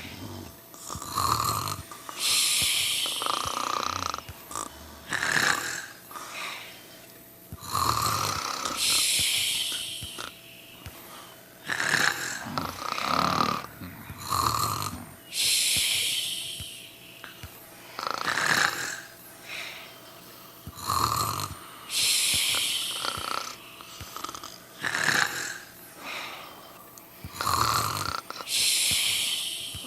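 Sleepers snoring heavily: rough, low snorts alternating with breathy, hissing breaths, in a cycle that repeats about every six to seven seconds.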